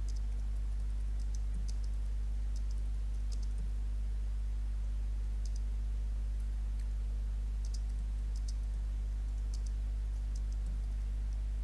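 Computer keyboard being typed on, slow and irregular keystrokes clicking one by one. A steady low hum runs underneath and is the loudest thing.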